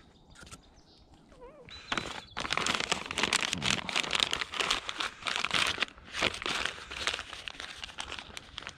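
Paper bag crinkling and crumpling as it is handled. It starts about two seconds in and is loudest for the next few seconds before easing off.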